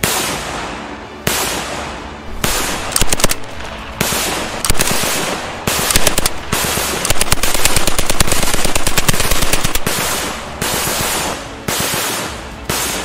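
Added gunfire sound effect: repeated bursts of submachine gun fire about a second apart, merging into a longer stretch of continuous automatic fire about seven seconds in.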